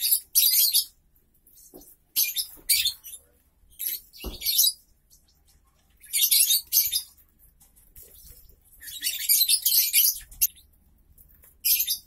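Lovebirds calling in short, shrill, high-pitched chattering bursts, about one every two seconds.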